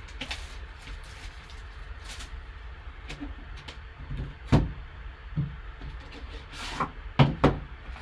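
A sealed trading-card box, a tin in a cardboard sleeve, being handled and turned with gloved hands: scattered bumps and scrapes of cardboard. The loudest knock comes about halfway, with two more close together near the end, over a low steady hum.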